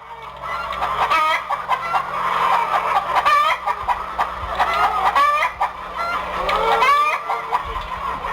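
A person imitating a clucking hen in a contest, a continuous run of quick clucks and squawks.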